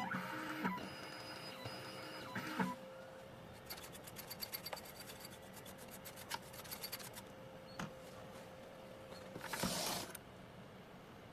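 A CNC key cutting machine's motors running and clicking, not loud: a run of quick ticks in the middle, then a short whir near the end.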